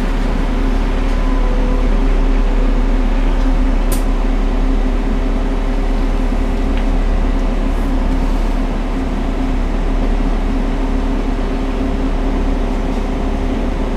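Inside a LiAZ city bus under way: the steady drone of the engine with road and tyre noise, heard from beside the rear doors. A single sharp click sounds about four seconds in.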